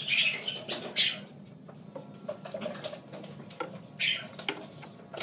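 A squeeze bottle of wood glue sputtering and squeaking in short bursts as glue is squirted along a board edge, with a few light knocks of wood being handled.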